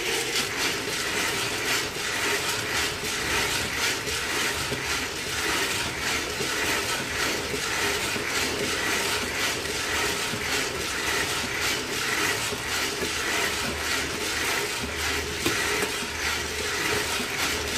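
Coffee beans tumbling inside a hand-cranked stainless steel roasting drum turning over a gas burner: a steady, dense rattle of many small clicks.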